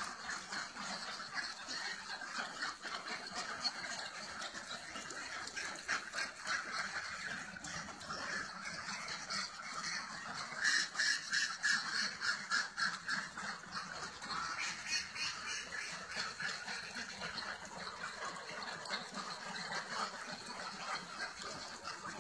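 A flock of domestic ducks quacking all together in a constant overlapping chatter, louder for a few seconds around the middle.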